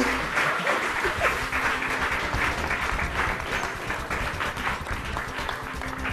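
Audience applauding, the clapping slowly fading.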